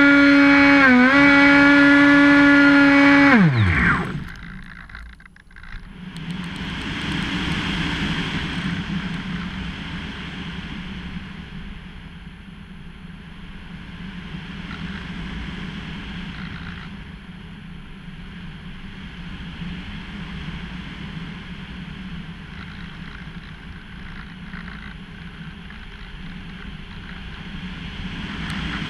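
Electric motor and propeller of a Hobbyking Bixler powered glider running at a steady high whine, dipping briefly about a second in, then winding down in pitch and cutting off about three and a half seconds in. After a short lull, airflow rushes over the nose-mounted camera as the glider flies on with the motor off.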